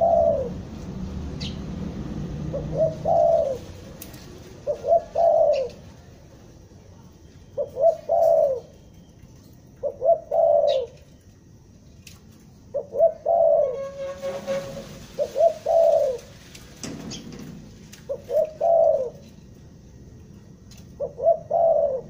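Spotted dove (tekukur) cooing: nine repeated phrases about every two and a half seconds, each a couple of quick short notes and then a longer one.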